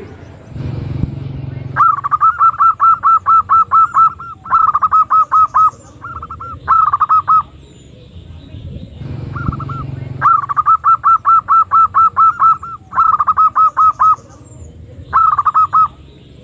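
Female zebra dove (perkutut) call used as a lure for wild doves: rapid runs of short, hooked cooing notes, about six a second, in bursts of one to two seconds with short pauses between.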